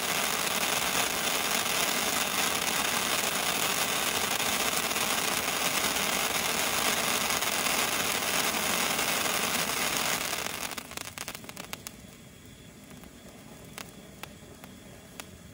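Legend Fireworks 'Lightsaber' firework wand burning: a steady hiss of spraying sparks that drops off sharply about ten seconds in, leaving a fainter hiss with a few scattered crackles.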